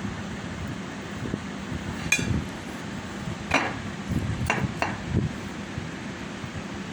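Cutlery clinking against a plate: four short, sharp clinks, the last two close together, over a steady low rumble.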